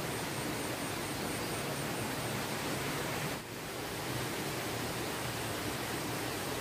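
Steady rushing noise, like running water or wind, with a brief dip about three and a half seconds in.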